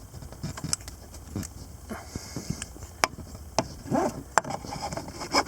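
Handling noise: about five sharp, light clicks and taps spread over a few seconds, with faint rustling between them.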